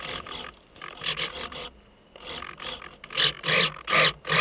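Footsteps crunching on packed snow: a few scattered crunches, then a quick, regular run of about four near the end, roughly two or three a second.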